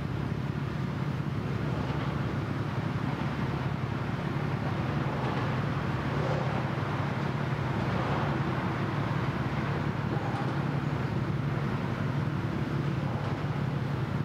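Steady low drone of ship engines from the passing floating crane vessel and its attendant boat. It is a constant hum that neither rises nor falls, over a light wash of outdoor noise.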